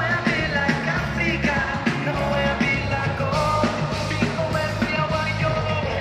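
Live band playing on a concert PA: a male singer on a microphone over drums, heavy bass and keyboards, with a steady beat.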